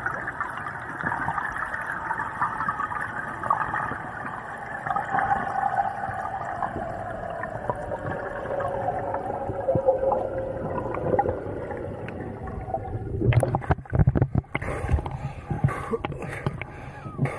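Muffled underwater water wash heard through a diving camera, with a tone slowly falling in pitch. About thirteen seconds in, the camera breaks the surface with loud splashing, followed by water sloshing around the buoy.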